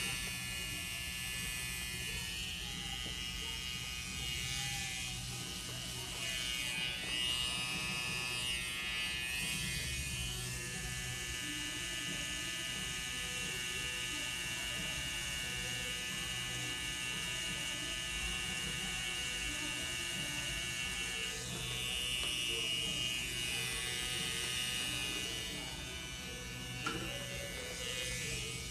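Electric tattoo machine buzzing steadily as it works ink into the skin.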